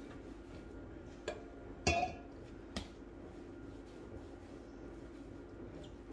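Hands shaping dough balls on a kitchen countertop: a few light knocks, the loudest a short clink with a brief ring about two seconds in, over a steady low hum.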